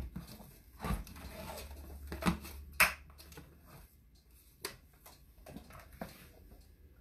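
Handling noise as a piano accordion is lifted and strapped on: a string of knocks and clunks with some rustling, the loudest clunk about three seconds in.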